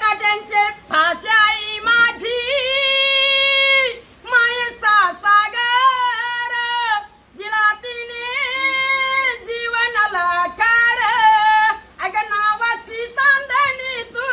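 A high solo voice singing a Marathi song without accompaniment. The singer holds long notes, some steady and some wavering, with short breaks between phrases.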